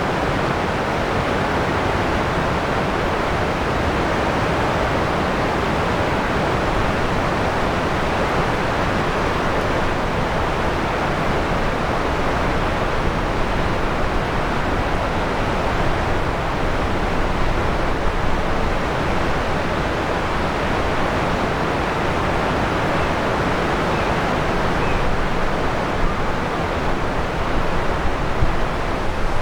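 River water rushing steadily, an even hiss with no break.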